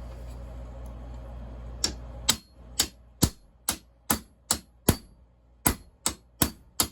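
Hammer blows on steel knocking the drilled-out rivet center out of a chainsaw bar tip held in a vise: about a dozen sharp, ringing metallic strikes, roughly two a second, starting about two seconds in.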